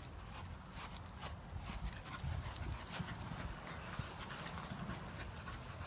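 Corgi running over dry grass: quick, irregular footfalls with a low rumble underneath.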